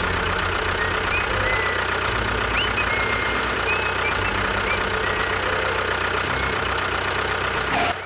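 Motor of a home-made mini tractor running steadily with a low, even rumble. It cuts off suddenly near the end.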